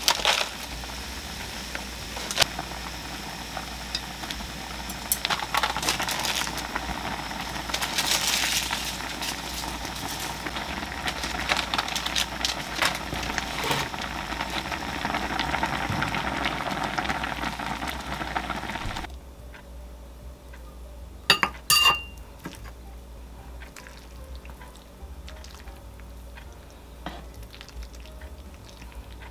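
A pot of budae-jjigae stew boiling hard on a gas stove, a steady bubbling hiss. About two-thirds of the way in it drops to a quieter background, with two sharp clinks of a utensil as the stew is ladled out.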